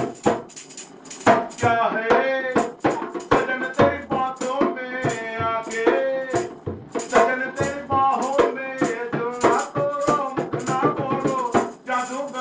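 Chutney song: a dholak played with quick, rhythmic hand strokes under a singing voice.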